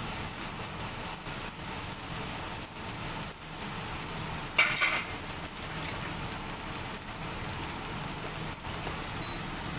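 Rib-eye steak searing in hot oil in a nonstick pan, with a steady sizzle. One short, louder noise comes about halfway through.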